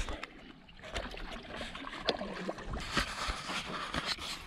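Canoe on calm water: paddle water swishing and dripping, with scattered light knocks against the canoe.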